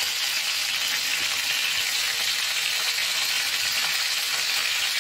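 Chicken leg quarters sizzling steadily as they fry in hot oil in a pan, being browned briefly so they stay whole.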